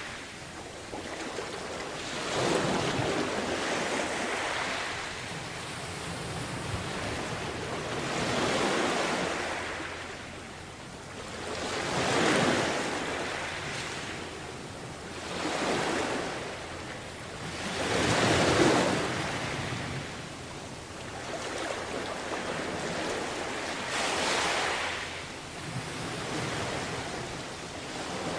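Sea waves washing onto a beach, each surge of surf rising and falling back every few seconds.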